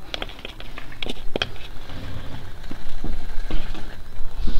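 A few sharp plastic clicks and knocks in the first second and a half as a red plastic funnel is pulled out of an outboard motor's oil filler neck, then a low rumble building toward the end.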